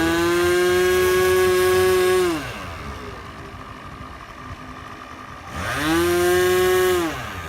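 Electric motor and propeller of an E-flite 1.2 m foam P-51 Mustang radio-control model in flight, a high whine that rises in pitch, holds, then drops away as it passes. It passes twice, the second pass briefer.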